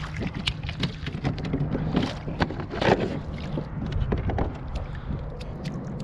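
Wind buffeting the microphone, with scattered small clicks, knocks and rustles of a caught trout being handled aboard a kayak.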